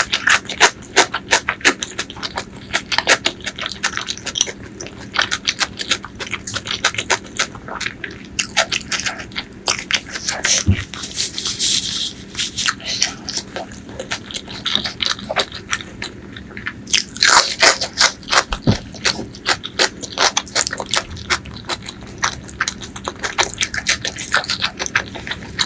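Close-miked wet chewing of pork leg curry and rice, with rapid sticky lip-smacks and mouth clicks, many a second.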